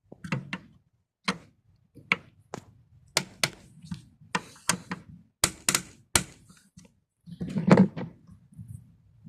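A dozen or so sharp clicks and knocks of hard parts and tools being handled, irregularly spaced, with a heavier thump about three-quarters of the way through.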